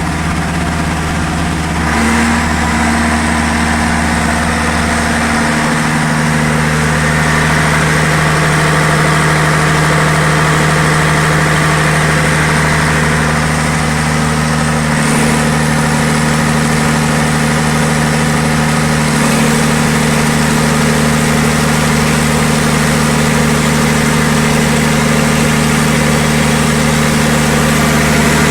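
Perkins diesel engine of a 760 kVA generator set running at a steady, even speed, a loud hum with a few small shifts in tone.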